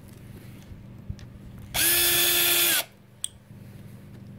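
A 20-volt cordless drill fitted with a 2.5 mm hex bit spins briefly for about a second at a steady speed, winding down at the end, followed by a single sharp click.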